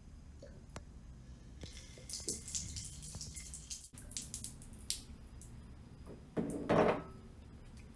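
Water spilling and dripping in scattered splashes, dribbling from a mouthful of water held in the cheeks, with a short louder muffled sound near the end.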